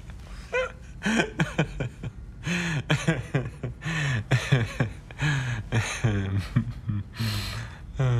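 Men's voices chuckling and laughing, without clear words, with short vocal sounds falling in pitch about twice a second, and a breathy exhale near the end.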